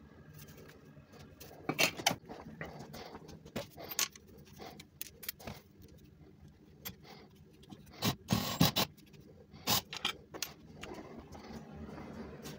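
Irregular clinks, knocks and scrapes of metal tubing and tools being handled on a workbench, with the loudest cluster of clatter about eight seconds in.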